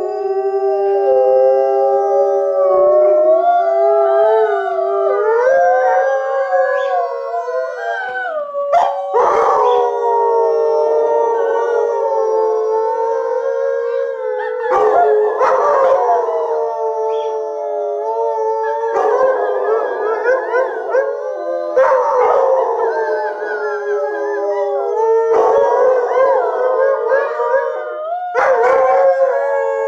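Three Alaskan Malamutes howling together in a chorus: several long, overlapping howls at different pitches that slide and waver, with rougher, noisier outbursts every few seconds.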